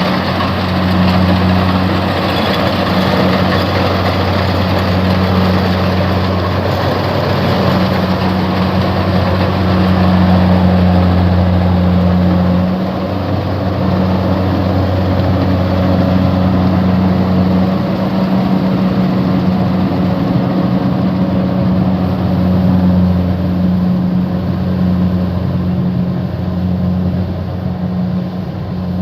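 Rice combine harvester running steadily: a low engine drone with a broad mechanical rush above it. The lowest part of the drone weakens about two-thirds of the way through.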